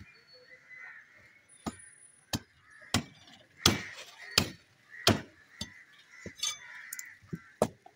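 Heavy meat cleaver chopping through a bovine skull on a wooden chopping block: about ten sharp blows at an irregular pace, starting about a second and a half in.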